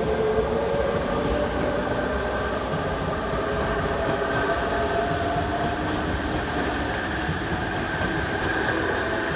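Tobu 100 series Spacia electric limited-express train pulling away, the wheels running on the track under a whine that rises slowly in pitch as it gathers speed.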